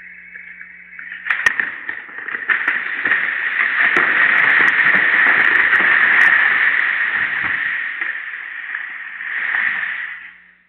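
A tree splitting and falling. A sharp crack comes about a second in, then more cracks, then a long rush of branches and leaves that swells for several seconds. It eases off, surges once more near the end, then stops.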